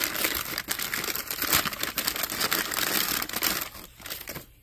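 Crumpled white packing paper crinkling and rustling as an object is unwrapped from it by hand. The crinkling stops shortly before the end.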